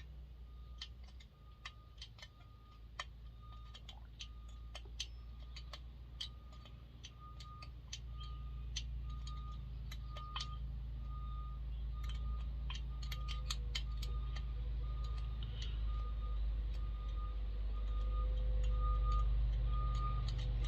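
Scattered light clicks and clinks of metal tools being handled, over a short beep repeating about twice a second and a low rumble that grows louder in the second half.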